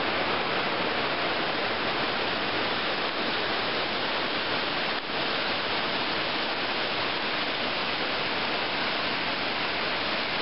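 Creek water rushing over waterfalls and cascades, a steady hiss with a brief drop in level about halfway through.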